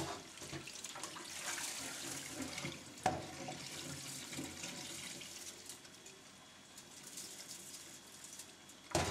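Tap water running into a bowl of rice as the grains are rinsed of their starch, with a sharp knock about three seconds in and a louder one near the end.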